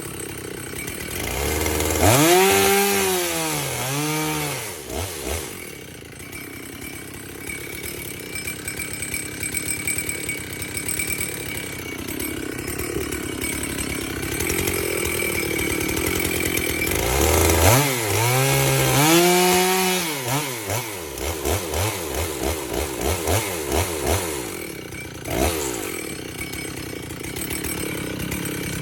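Chainsaw on a freshly sharpened chain, revved up and back down about two seconds in and again about seventeen seconds in, running steadily between while cutting wood.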